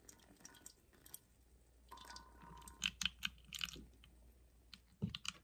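Faint scattered clicks and crackles as water is poured from a kettle into a calabash bowl over a tea bag. A cluster of sharper clicks comes about three seconds in and two more near the end.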